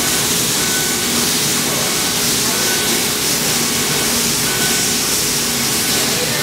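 Laser cutting machine working on fabric: a steady hiss, most likely its air assist and fume extraction, with a steady hum under it. Short whines come and go every second or two as the cutting head travels along the lines.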